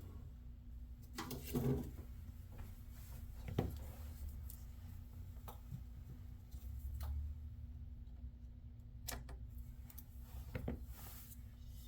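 Scattered light clicks and knocks of tools and small parts being handled on a workbench, over a steady low hum.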